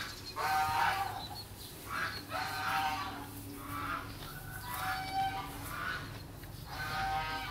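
Farm poultry calling off-screen: about five pitched calls, a second or two apart.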